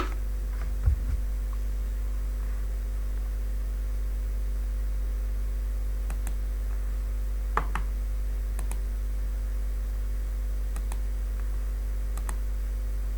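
Steady electrical mains hum throughout, with a sharp click at the start, a low knock about a second in, another click midway and a few faint ticks after it.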